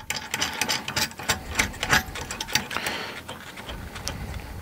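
Steel nut being turned by hand along a threaded rod of a 3D printer frame and snugged up: a quick, irregular run of small metallic clicks and ticks that thins out toward the end.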